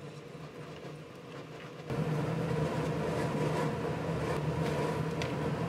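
Steady low mechanical hum of a kitchen appliance, which steps up in level about two seconds in. A few light, sharp clicks of metal tongs handling sliced beef against a ceramic plate come later on.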